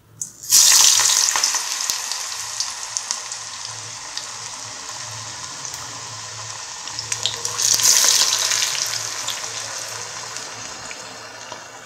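Battered tapioca strips deep-frying in hot oil in a kadai: a loud sizzling hiss starts suddenly as the batter hits the oil and slowly dies down, then swells again in a second loud surge about seven and a half seconds in before fading.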